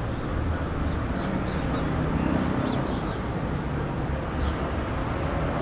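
Steady low outdoor rumble, like distant traffic or engine noise, with a few faint high chirps over it.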